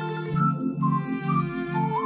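Background music: an instrumental tune with a melody over a low note pulsing about four times a second.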